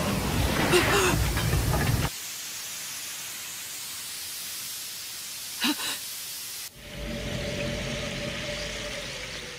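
Anime sound effects of billowing smoke: a loud rushing hiss that cuts off abruptly about two seconds in, then a quieter steady hiss with a short swish near the middle, and a low rumble with a held tone over the last three seconds.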